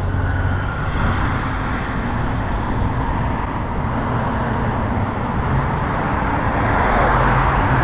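Road traffic on a multi-lane road: a steady rush of tyres and engines from passing cars, swelling near the end as a vehicle goes by.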